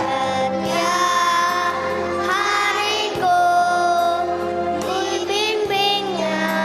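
Kindergarten children's choir singing a song over a steady instrumental accompaniment, the voices holding and sliding between long sung notes.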